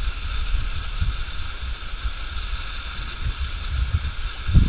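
Wind buffeting the microphone in uneven low rumbles, with a stronger gust near the end, over a steady outdoor background hiss.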